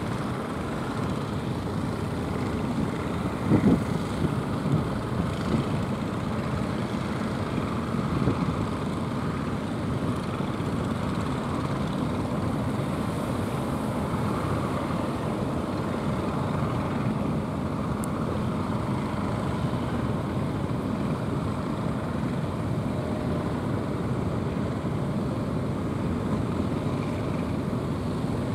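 Engine of a jukung outrigger fishing boat running steadily under way through choppy water, with a few brief louder surges in the first several seconds.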